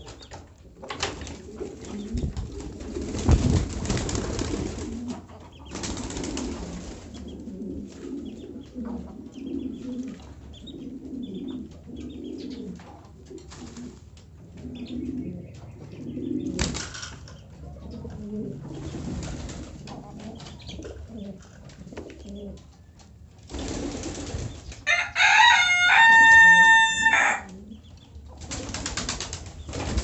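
Domestic pigeons (king pigeons and French mondains) cooing in low, repeated coos, with wings flapping now and then. About 25 s in, another bird gives a louder, higher call lasting about two seconds, the loudest sound.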